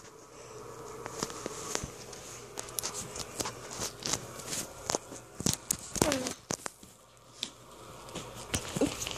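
Knocking, clattering and rustling of a white plastic laundry basket and bedding being handled while a cat moves and gets out from under it. There is one short cry falling in pitch about six seconds in.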